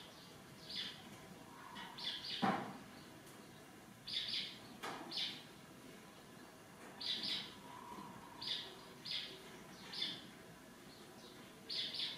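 Small birds chirping: short, high chirps, single or in pairs, every second or so over faint outdoor background noise. There is one louder short sound about two and a half seconds in.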